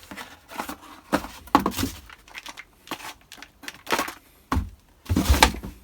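Cardboard box and packaging being torn open and handled: irregular tearing, crinkling and knocks.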